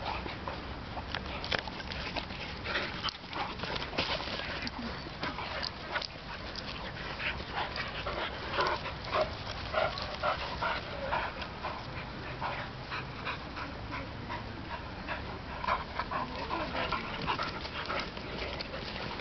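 A Great Dane and a young German Shorthaired Pointer play-fighting, with many short dog vocal sounds and scuffles scattered throughout.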